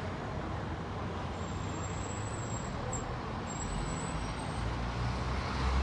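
Steady urban traffic noise, a constant hum of road vehicles, with a low rumble swelling near the end.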